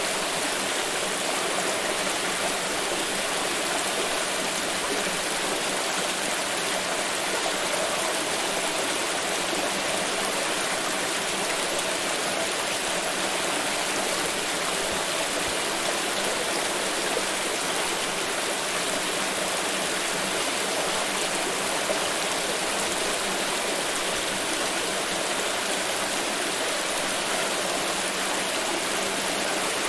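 Steadily flowing water, a stream running over stones.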